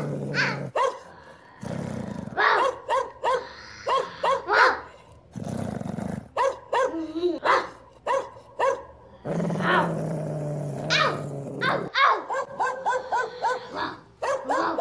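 A dog barking repeatedly in short, quick series.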